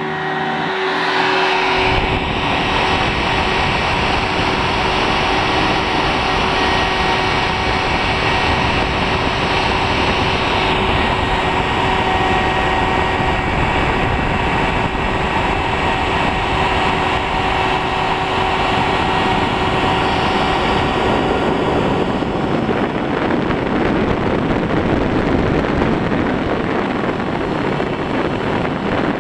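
Amateur-built CNC machine engraving brass: the spindle runs with a steady whine of several tones over a hiss as the cutter works the brass plate. It builds up over the first two seconds, and about 22 seconds in the tones fade and the noise turns rougher.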